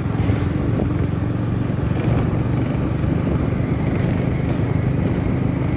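A vehicle engine running steadily: a loud, even low drone with a fast pulsing beat.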